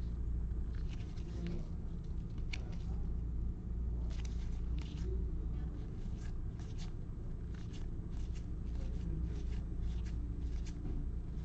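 A stack of baseball trading cards handled in a gloved hand, the cards flicked and slid past one another one at a time: soft, irregular flicks of card stock over a steady low hum.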